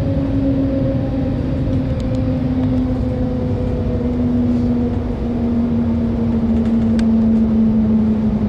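Cabin noise inside the Shanghai Transrapid maglev train: a steady low rumble with a hum that slowly falls in pitch as the train slows on its approach to the airport station.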